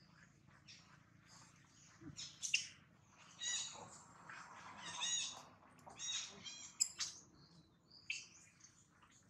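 Long-tailed macaques screaming during a scuffle over a baby: several short, high-pitched squealing cries about a second apart.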